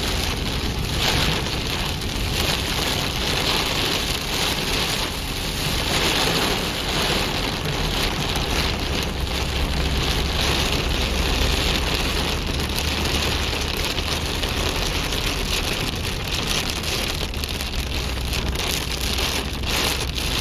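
Heavy rain pelting a car's windshield and roof as a steady hiss, over the low rumble of the car driving on a wet road.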